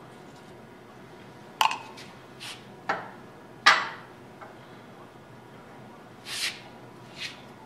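Steel parts clinking and knocking against a cast-iron bench vise as a workpiece and a hand tap in a tap wrench are set up: four sharp metallic clanks with brief ringing, the loudest about two thirds of the way through the first half. Two short scraping hisses follow near the end.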